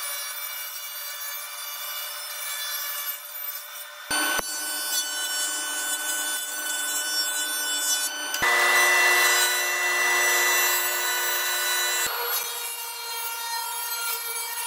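Woodworking machines cutting wood in a string of short clips that change abruptly: a table saw ripping a board, a jointer planing a board face, which is the loudest part, and the table saw again near the end.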